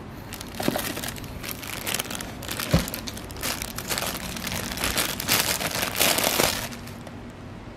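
Thin clear plastic wrapping crinkling and rustling as a coiled headphone audio cable is handled inside its bag, in irregular bursts with one soft bump about three seconds in. The crinkling stops about a second before the end.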